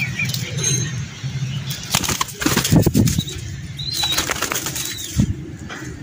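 Pigeons' wings flapping in a rapid flurry of strokes, loudest two to three seconds in, then a shorter flurry around four seconds in.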